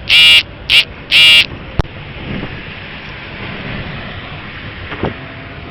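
Car horn honks three times in the first second and a half: two longer blasts and a short one between them. Strong wind then rushes steadily over the microphone, with a single sharp knock about two seconds in.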